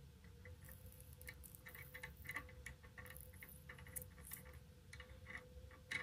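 Faint, irregular small ticks and crackles as flux-core solder wire melts into an EC5 connector cup on the tip of a Metcal induction soldering iron, the flux sputtering and smoking. A faint steady hum underneath.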